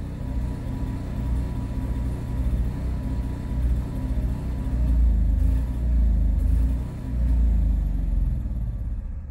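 An RV's onboard propane generator trying to start: a low rumble that swells and sags unevenly every second or two as it fails to keep running.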